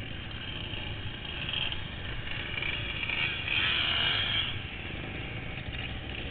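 Enduro motorcycle engine running, swelling louder about halfway through and dropping back a second or so later.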